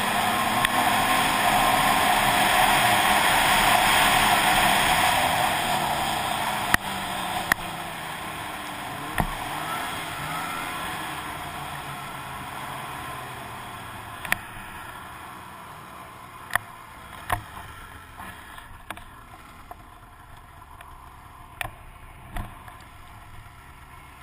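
Snowmobile running along a snowy trail, a steady noise of engine, track and wind that grows steadily quieter from about six seconds in as the machine eases off. A handful of sharp knocks are scattered through the second half.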